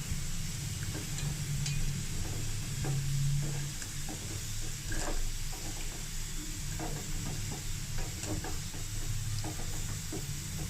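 Milk with caramelised sugar and whole spices simmering and bubbling in a pan on the stove as it comes to the boil, with scattered faint clicks over a steady low hum.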